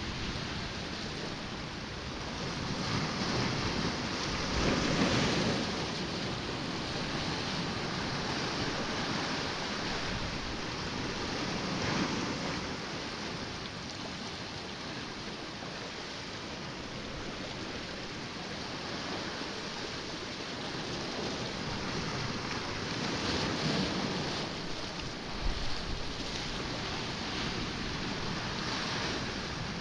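Sea waves washing against a rocky shore with wind, a steady rush that swells louder every several seconds. A few brief knocks sound a little before the end.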